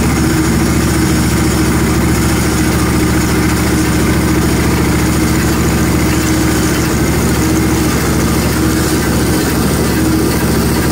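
Engine of a Hud-son Homesteader HFE30 portable bandsaw mill running steadily after start-up, with a tone above it that wavers slightly. The mill is making a new noise that doesn't sound good, which the sawyers suspect is the other backer bearing.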